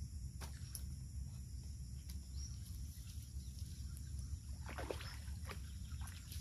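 Hooked tilapia splashing at the water's surface as it is reeled in, with a few short splashes about five seconds in, over a steady high buzz of insects.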